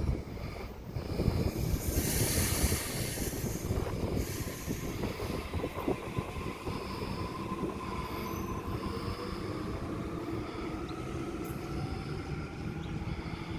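Electric suburban train at the platform: rumble and wheel noise, louder with a hiss about two seconds in, then a motor whine that rises slowly in pitch through the second half.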